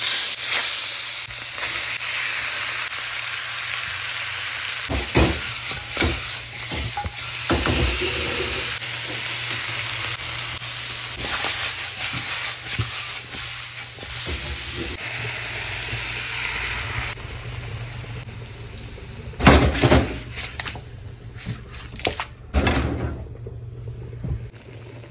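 Chicken pieces frying in hot oil in a metal pot, sizzling loudly, with scrapes and knocks as they are stirred. The sizzle drops off about two-thirds of the way through, and a few louder scrapes against the pot come near 20 seconds in.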